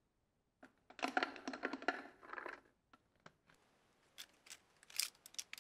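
Small metal screws clinking and rattling against each other and a plastic vinegar bottle as they are picked up and dropped in: a dense clatter about a second in, then a few separate sharp clicks near the end.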